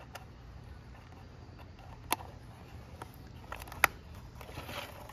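A few sharp clicks over a low steady hum: one about two seconds in, a louder one near four seconds with fainter ticks just before it.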